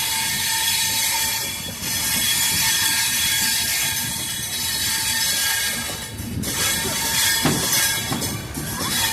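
Wheels of a passenger train of LHB coaches grinding and squealing against the rails as it rolls through a curve, a steady high-pitched ringing, with a few knocks near the end.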